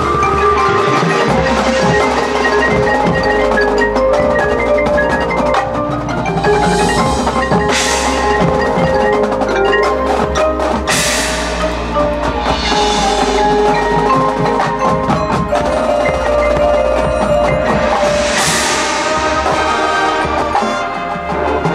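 Marching band music: the front ensemble's mallet percussion (marimba, glockenspiel and chimes) plays a melody over sustained low tones, with several cymbal washes that swell and fade.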